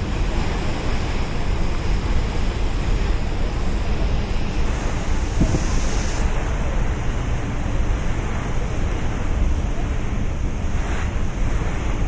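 Steady wind buffeting the microphone on the deck of a moving Staten Island ferry, over a continuous wash of harbour water along the hull.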